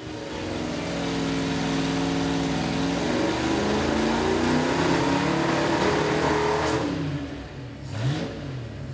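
Carbureted Ford 289 Hi-Po V8 on an engine dyno, revving up steadily under load from about 2,500 rpm. About two-thirds of the way in, near 4,500 rpm, it breaks up and the revs fall back in wavering dips. The breakup comes from the breaker points floating in the points distributor.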